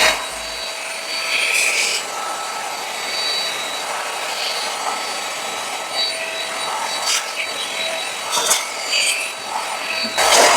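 AGARO Regal 800 W corded handheld vacuum cleaner running with a steady rushing whine while a car seat is vacuumed. Its airflow sound swells briefly now and then as the nozzle works the upholstery, and it stops shortly before the end.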